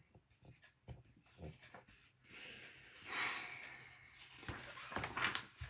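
Pages of a hardcover picture book being turned and handled: a soft paper rustle swelling about three seconds in, with a few light knocks of the book near the end.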